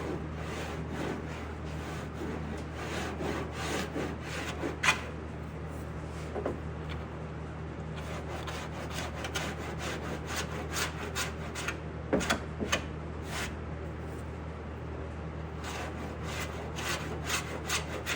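Hand sanding body filler on a steel car door panel: repeated scraping strokes of abrasive on the filler, over a steady low hum.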